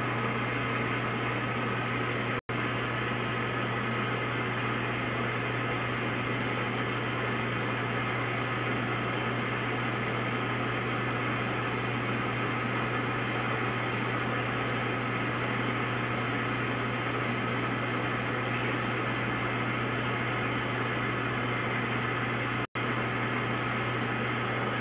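Steady low hum under an even hiss, cutting out completely for an instant twice, about two seconds in and near the end.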